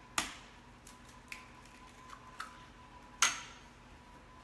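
A handful of sharp taps and clinks against a stainless steel mixing bowl, about six in all; the first, just after the start, and one about three seconds in are the loudest, the later one ringing briefly like struck metal.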